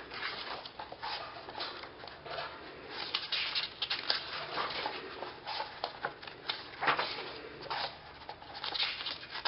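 Glossy pages of a photobook album being turned and handled, rustling and crackling in short irregular bursts, with pet budgies chattering.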